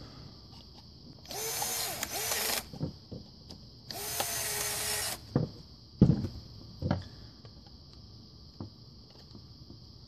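Craftsman cordless drill driving the screws into the back collar of a twist-lock plug, two short runs of about a second each with a steady motor whine. A few sharp knocks follow as the drill is set down on the workbench.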